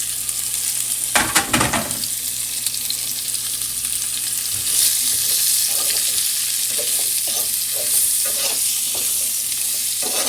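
Food frying in a hot pan on the stove, a steady sizzle, with a quick cluster of utensil knocks about a second in. The sizzle grows louder and brighter a little before halfway.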